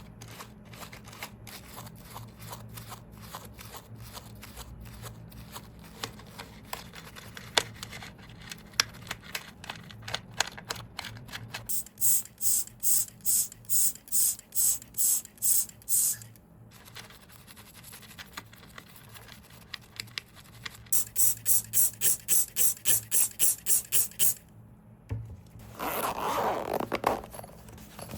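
Small hand tools working on a wristwatch: light clicks and scrapes, broken by two runs of quick, even, hissing strokes, the second faster than the first, and a short rougher scrub near the end.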